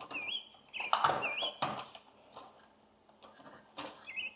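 A songbird singing short, repeated whistled phrases that waver upward, with a few sharp knocks; the loudest knocks come about a second in.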